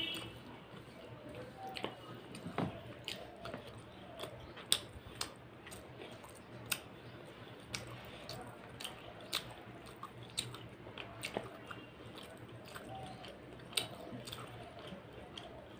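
Close-up chewing of mutton curry and rice, with short wet mouth clicks and smacks coming irregularly, several a second.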